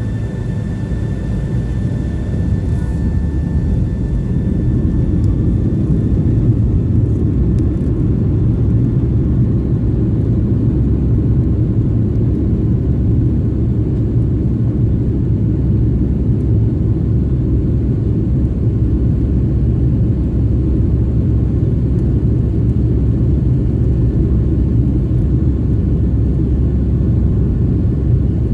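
Jet airliner cabin noise during takeoff: the engines and airframe make a deep, steady rumble that builds over the first several seconds and then holds loud.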